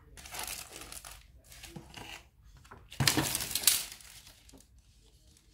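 Crinkling and rustling of a thin, plastic-like perforated sheet (an AC air deflector panel) being handled and rolled up by hand, in several bursts, the loudest about three seconds in.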